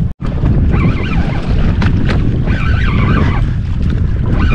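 Wind buffeting the microphone on an open boat at sea, a heavy, rough low rumble that drops out for an instant near the start.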